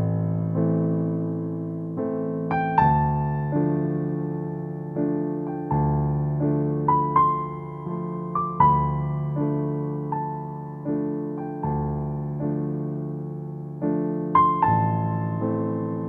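Background piano music: slow, gentle notes and chords, each struck and left to fade, about one a second.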